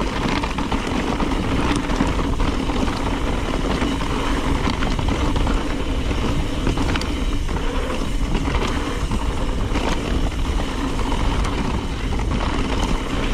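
2020 Trek Remedy 9.8 mountain bike descending desert singletrack at speed: tyres running over loose dirt and rock, with scattered knocks and rattles from the bike over bumps, and wind buffeting the handlebar-mounted camera.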